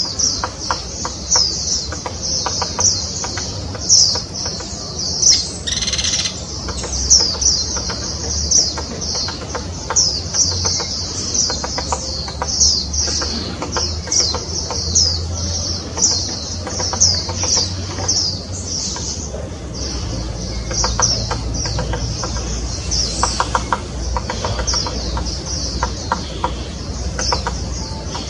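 Small birds chirping in a steady run of short, high chirps, two or three a second, over a low background rumble.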